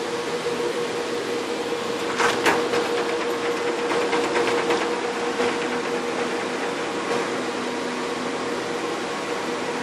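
Steady whir of cooling fans and air handling in a cell-site equipment room, with a constant hum tone. About two seconds in, a run of quick clicks and rattles starts and dies away over the next few seconds.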